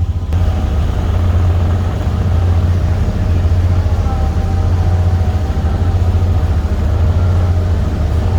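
A steady low engine drone runs unbroken, with a faint steady whine above it.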